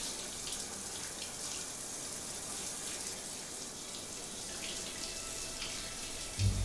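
Water running steadily from a tap or shower, an even hiss with faint splashes in it. A low hum starts near the end.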